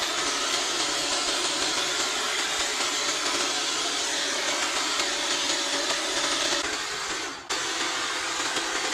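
Small petrol engine of a handheld garden power tool, a line trimmer or hedge trimmer, running steadily at working speed while cutting back invasive vine and weeds; the sound dips and cuts out for an instant about seven seconds in, then carries on.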